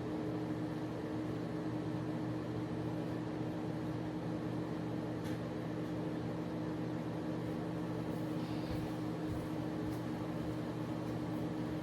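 Microwave oven running with a steady hum, heating food that was still partly frozen.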